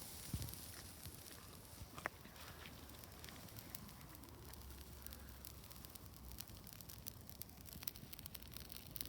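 Bonfire burning at night, faint crackling with scattered small pops and one sharper pop about two seconds in.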